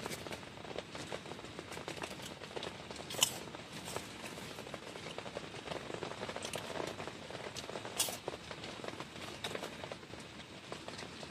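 Rain pattering steadily, a dense crackle of small drops, with two sharp clicks about three and eight seconds in.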